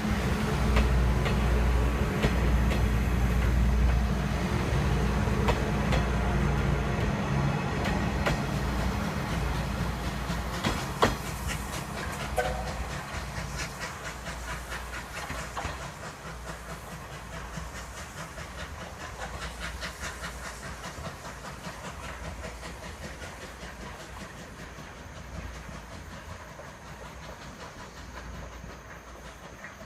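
Steam-hauled train of 8620-class locomotive 58654 and its 50-series coaches pulling away, wheels clicking over the rail joints with a heavy low rumble and steam hiss. It is loudest over the first dozen seconds, with one sharp knock about eleven seconds in, then fades steadily as the train moves off.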